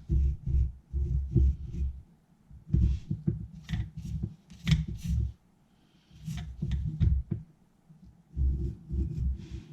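Low thumps and rubbing, the handling noise of hands working a Deans connector and soldering iron close to the microphone, with a few light clicks, coming in bursts with short pauses between them.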